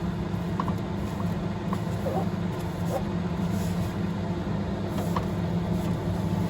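A steady low hum, with a few faint short squeaks in the first half.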